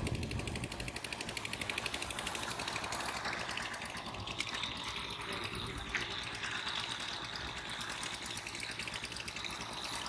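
A small engine running steadily with a fast, even beat, and a faint thin high tone joining about three seconds in.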